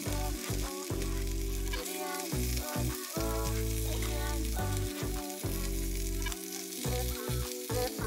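Salmon pieces sizzling in hot oil in a miniature wok, stirred and turned with a small wooden spatula. A beat with bass notes plays underneath.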